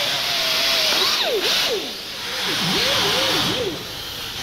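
Air-powered disc grinder grinding down welds on steel body panel: a whine over the hiss of the air exhaust. About a second in, the pitch sags and wavers up and down as the disc bites into the metal, then climbs back near the end.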